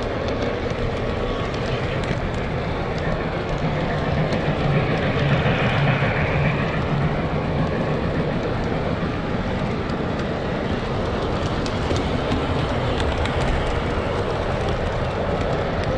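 Model train running on the layout track: a steady rumble of motor and wheels on the rails, swelling louder about four to seven seconds in as it passes close by.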